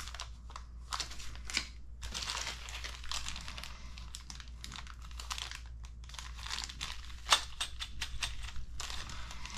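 Small clear plastic parts bags crinkling and crackling as they are handled and pulled open, with scattered sharp crackles; the loudest is about seven seconds in.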